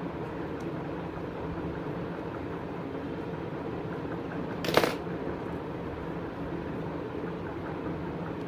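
A single sharp metallic click of steel scissors about halfway through, over a steady background hiss.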